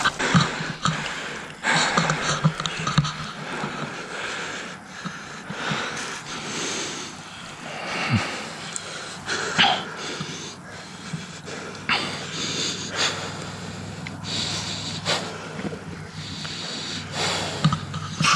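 A person breathing hard in uneven, wheezy gasps, with rustling and clicks from the phone being handled while moving through grass.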